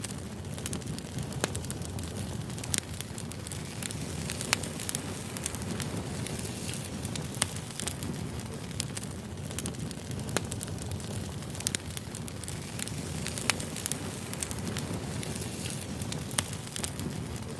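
Burning firewood: a steady low rumble of flames with frequent sharp crackles and pops at irregular intervals.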